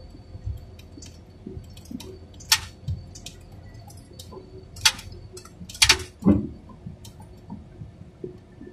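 Scattered sharp clicks and knocks, a few louder ones about halfway through, over a low steady engine hum in the cab of a heavy machine, with a faint steady high whine.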